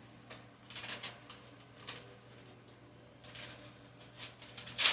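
Irregular handling noises: light rustles and taps as objects are moved by hand, with a louder rustle near the end.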